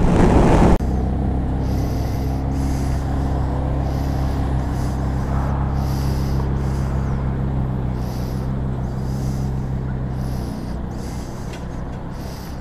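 A motor vehicle engine idling steadily, with a soft hiss coming back roughly once a second. The low engine hum drops away about ten seconds in.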